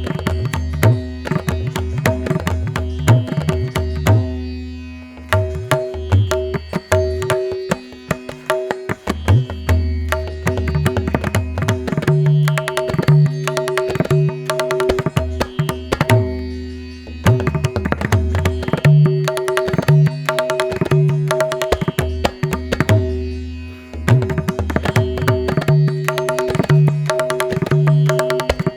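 Background music with a busy percussion beat over sustained bass and melody notes; the bass drops out for a moment every several seconds.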